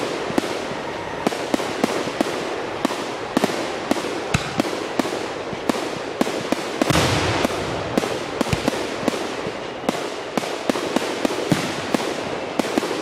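Fireworks going off in a dense barrage: many sharp bangs and pops, several a second, over a continuous crackle, with a louder burst of crackling about seven seconds in.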